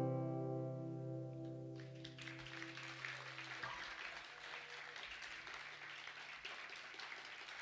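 The last strummed chord of an acoustic guitar rings out and fades away over the first three or four seconds. Quiet applause comes in about two seconds in and carries on, turned down low.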